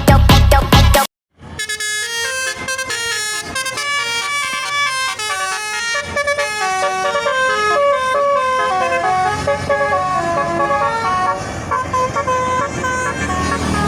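A bus's Basuri telolet horn, an electric multi-trumpet horn, playing a quick melody of stepped notes, with the bus engine running underneath in the second half. Electronic dance music cuts off suddenly about a second in, just before the horn starts.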